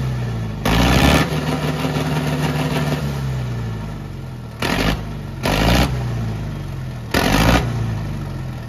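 Tractor engine being revved through a newly fitted 'Cheetah 2' silencer on a tall vertical exhaust stack. Four sharp throttle blips, about a second in, then twice close together past the middle, then once more near the end, each followed by the engine note sliding back down.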